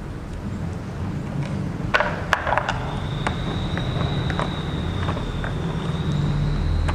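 Toy blister pack of card and clear plastic being handled, pried and cut with scissors: a cluster of sharp crackles and clicks about two seconds in, then scattered lighter clicks and snips. Underneath there is a steady low hum, and a faint steady high whine comes in about three seconds in.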